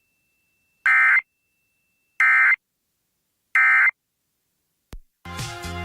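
NOAA Weather Radio Emergency Alert System data burst sent three times: three short, identical buzzy chirps of SAME digital tone about a second and a half apart. Bursts this short are the end-of-message code that closes the weekly test. Near the end there is a click, and then other broadcast audio begins.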